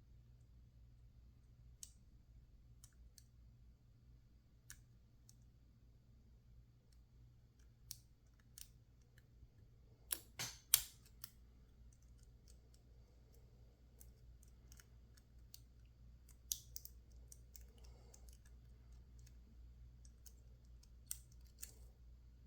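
Lock picks working inside a PacLock 410 Pro padlock: faint, scattered metallic clicks and ticks from the pick and tension wrench against the pins and keyway. A quick run of louder clicks comes about ten seconds in.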